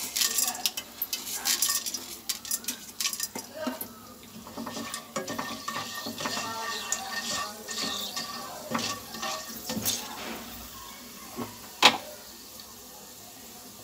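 Plastic slotted spatula scraping and tapping in a nonstick frying pan, stirring whole cloves, cardamom and black peppercorns in hot ghee. Many short clicks and scrapes, with one sharp knock near the end.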